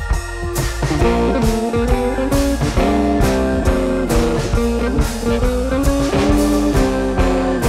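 Background music: a blues-rock track with guitar over a steady drum beat.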